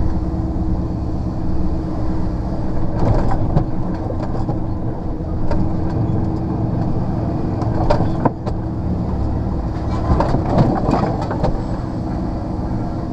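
Rigid HGV lorry's diesel engine running steadily, heard from inside the cab, with rattles and clunks from the cab and body at intervals and a cluster of them near the end.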